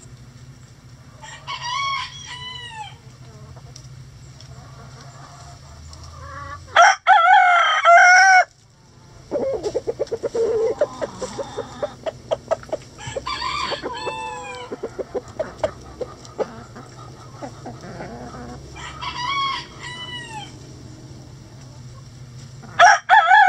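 Roosters crowing repeatedly in a chicken coop: five crows about five to six seconds apart, the ones about 7 s in and near the end much louder and closer, with hens clucking in short runs between them.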